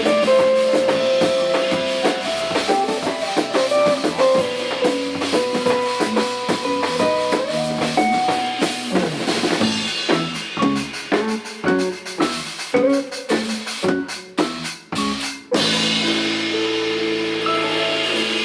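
Instrumental band music: a guitar melody over bass and drum kit, with a run of sharp accented hits near the end. The drums then drop out, leaving a held chord ringing.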